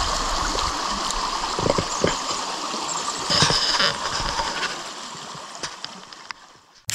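Shallow rocky creek trickling over stones, fading out near the end.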